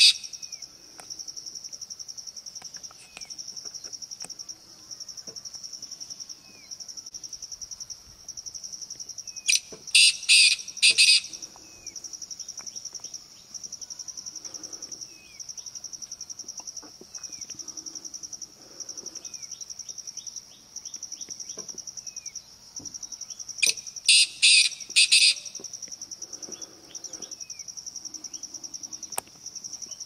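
Male black francolin calling: a quick series of about five loud notes lasting about a second and a half, given twice about fourteen seconds apart, with the end of another series right at the start. A steady high, fast-pulsing drone runs underneath.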